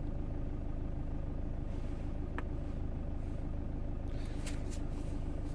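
Mercedes CLC220 CDI's four-cylinder diesel idling steadily while still warming up, heard from inside the cabin. A few light taps of a stylus on a laptop touchscreen come over it.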